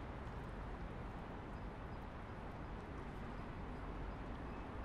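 Footsteps on stone paving, faint irregular ticks over a steady hum of city traffic.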